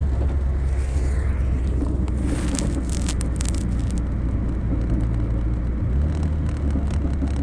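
Volvo 244's turbocharged B230FT four-cylinder engine running, heard from inside the cabin as a steady low drone whose pitch steps up slightly about six seconds in. A cluster of sharp clicks and rubbing from the phone being handled comes between about two and four seconds in.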